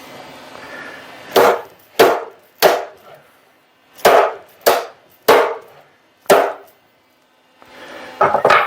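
Hammer blows knocking a stuck part loose on a Delta drill press, in place of a wheel puller: seven sharp strikes, three, then three, then one more, each with a brief ring. A short clatter near the end.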